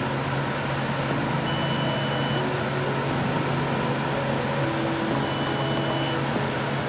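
Arctic King 8000 BTU portable air conditioner running: a steady rush of air from its fan over a constant low hum.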